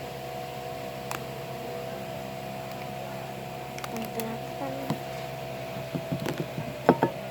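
Small clicks and taps from handling a small plastic slime container, with a quick cluster of louder sharp clicks about seven seconds in, as a lid is snapped on. A steady electrical hum runs underneath.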